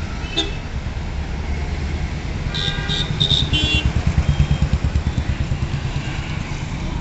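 Road traffic with a continuous low engine rumble. A Royal Enfield single-cylinder motorcycle passes close with an even, pulsing thump, loudest a little past halfway. A few short horn toots sound shortly before it.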